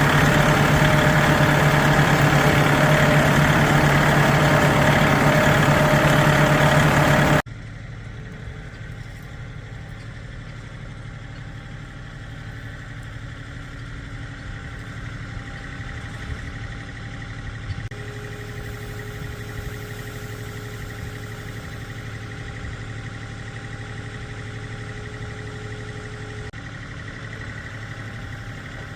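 A vehicle engine running loud and close for about the first seven seconds, then an abrupt drop to a quieter, steady engine hum for the rest. A thin steady whine joins it for several seconds in the second half.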